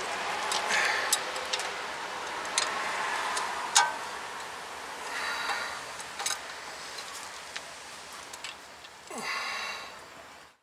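Ratchet wrench clicking in short, scattered runs as it tightens a brake caliper bracket bolt, with a brief rustle near the end.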